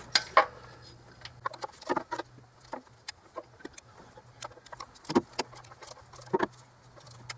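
Hand tools tightening intake manifold bolts: a ratchet or torque wrench giving scattered short clicks and knocks, with a louder knock about five seconds in and again about six seconds in, over a faint steady hum.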